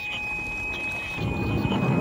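A toy siren sounding one steady, held electronic tone, and a little over a second in, the rising rumble of a toy car rolling down a slope.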